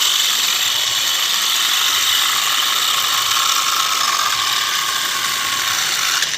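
Homemade mini chainsaw running: a small electric motor driving the saw chain, giving a steady, dense rattle of chain links over the sprocket and bar. It drops to a lower level near the end.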